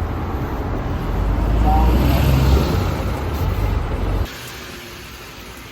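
Street noise with passing traffic: a loud low rumble and mixed background sound that cuts off abruptly about four seconds in, leaving a quieter steady hiss.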